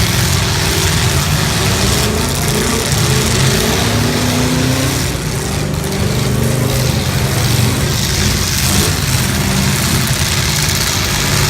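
Several full-size demolition derby cars' engines running and revving together, the pitch rising and falling.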